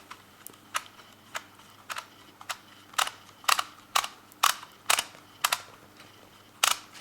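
Sharp plastic clicks from a DYMO Omega hand-held embossing label maker being worked: a few at first, then a steady run of about two a second, a short pause, and one more near the end.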